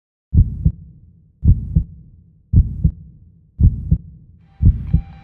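Heartbeat sound effect: five slow, low double thumps (lub-dub), about one a second. Near the end, high plucked notes of music come in.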